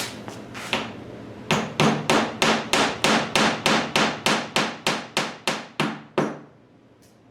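Hammer driving a glued wooden peg into its hole: about a second of light tapping, then a steady run of about sixteen sharp blows, roughly three a second, that grow slightly softer before stopping.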